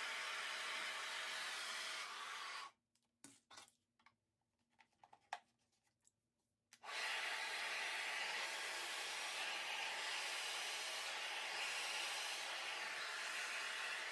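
2200-watt handheld blow dryer running with a steady rushing hiss, cut off for about four seconds with a few small clicks and handling noises, then running again, a little louder, from about seven seconds in.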